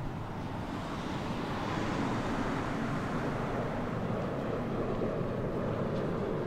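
Steady low rushing noise, like a traffic or wind ambience, swelling about a second in and then holding.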